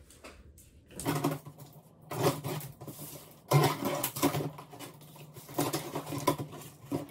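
Large cardboard shipping box being handled and opened: about five irregular bursts of cardboard scraping and rustling.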